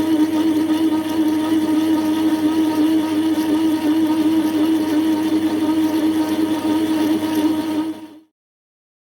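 Metal lathe running steadily with a constant motor hum. The sound cuts off abruptly about eight seconds in.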